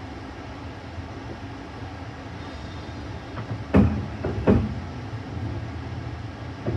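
Passenger train running with a steady low rumble, broken by two loud sharp knocks a little over half a second apart around the middle, with a few fainter knocks around them.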